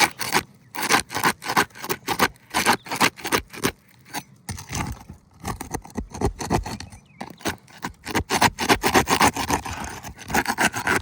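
A roof snake scraping and prying under an old, dry asphalt shingle in quick, irregular strokes, with a short pause partway through, to break the seal and work the shingle loose. The shingle is brittle and cracking as it is pried.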